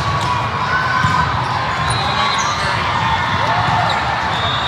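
Din of a volleyball tournament hall: balls being hit and bouncing on many courts, shoes squeaking on the sport-court floor, and a babble of players' and spectators' voices, all echoing in the large hall.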